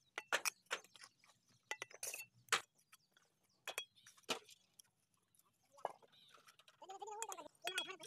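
Steel trowel tapping and knocking on fired clay bricks and scraping mortar while bricks are laid and bedded: a string of sharp, irregular clinks and knocks. Near the end a short wavering call is heard.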